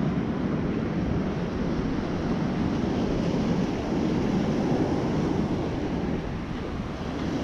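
Heavy storm surf breaking and washing up a sandy beach, a steady rushing noise, with wind buffeting the microphone.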